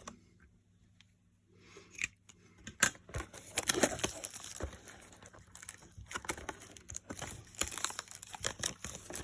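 Plastic wrapping crinkling and tearing as a trading-card blaster box is unwrapped by hand, starting with a sharp snap about three seconds in and then crackling on busily.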